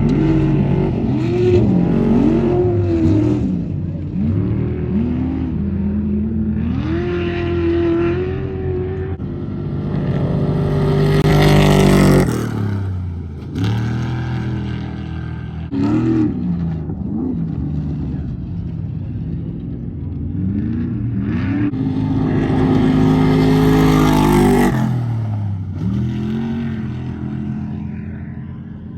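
Off-road race trucks' engines revving up and down as they race past. Two pass close, each swelling loud and then dropping sharply in pitch as it goes by: one a little before halfway, the other near the end.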